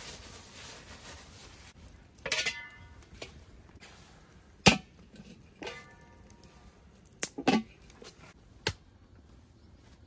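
A handful of sharp knocks at irregular intervals, the loudest about halfway through; two of them leave a short ringing tone.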